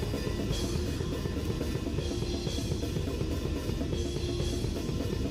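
Live thrash metal played through a drum-cam mix, the drum kit to the fore: fast, driving kick drum and snare, with cymbal crashes about half a second in and again about two and a half seconds in.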